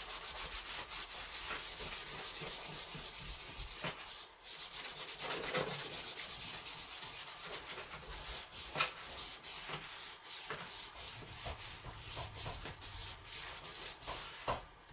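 Hand sanding of a plastic trim piece: fast back-and-forth rubbing strokes, about six a second, with a short pause about four seconds in, then slower and more irregular strokes for the rest.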